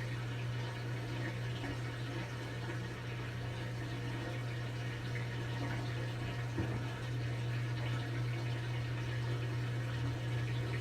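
Brastemp BWK17 17 kg washing machine partway through its quick cycle: water rushing over a steady low hum, with one brief knock about six and a half seconds in.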